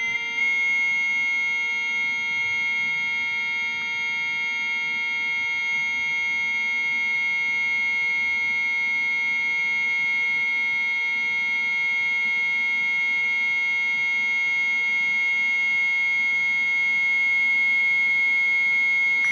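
A continuous electronic tone from the ANLC anti-snake testing device, held at one high pitch with several fainter steady tones above and below it.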